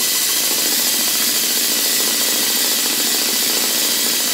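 Twister 2 R/C helicopter's electric motor and main rotor running steadily under throttle, a constant high whine with rotor whoosh. The rotor is out of balance and wobbling, which the owner says definitely needs balancing.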